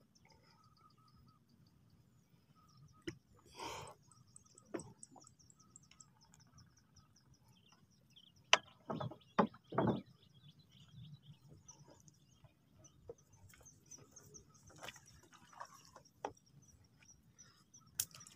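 Faint birds chirping in a high, repeated trill over quiet open water, broken by a few short knocks and splashes, the loudest about nine to ten seconds in.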